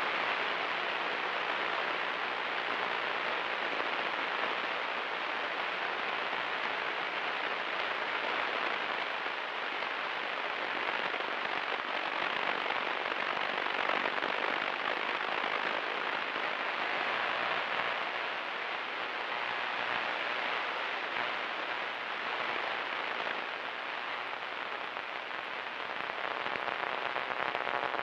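Cessna 172 Skyhawk cabin noise on the approach to land: the engine and propeller running with the rush of airflow, a steady even noise without distinct tones.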